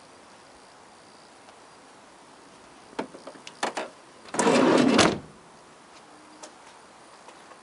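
Citroen Berlingo's rear sliding side door being handled and slid shut: a few sharp clicks from the handle and catch, then one loud rush of under a second that stops abruptly as the door closes.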